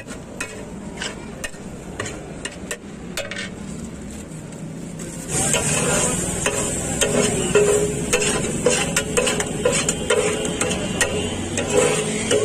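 Metal spatula stirring and scraping pulav on a large flat iron tawa, with sizzling and frequent sharp clicks of the blade against the griddle. About five seconds in it turns to louder, rhythmic scraping of the bare metal surface, with short ringing scrape tones.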